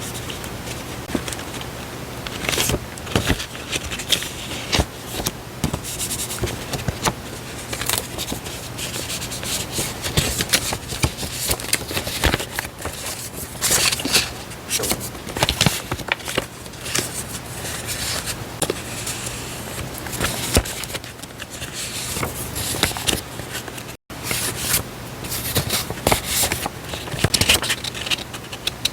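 Paper stationery and diary-decorating items being handled close to the microphone: irregular rustling, scraping and crinkling of paper and packaging, with small taps and clicks.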